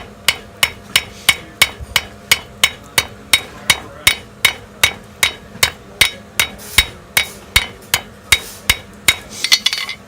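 Blacksmith's hammer striking a hot steel leaf blank on an anvil in a steady rhythm of about three blows a second, each with a bright ring, ending in a quick flurry of lighter taps. The hammering leaves peen marks that are flattened afterwards.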